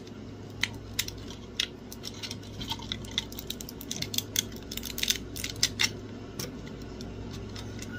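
Support material being snapped and picked off a 3D-printed plastic fan duct: irregular sharp clicks and crackles of plastic breaking and parts knocking together, over a low steady hum.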